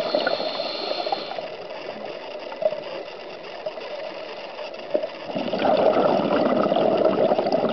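Scuba diver's exhaled bubbles gurgling from the regulator, heard underwater. They die down about a second in and come back about five and a half seconds in, with a quieter stretch of underwater noise and two faint clicks in between.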